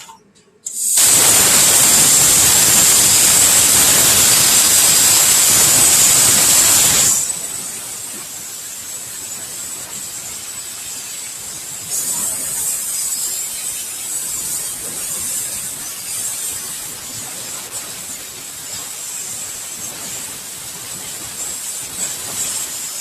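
Plasma cutter torch firing and cutting: a loud, harsh hiss with a high edge starts about a second in, then drops after about seven seconds to a quieter steady hiss.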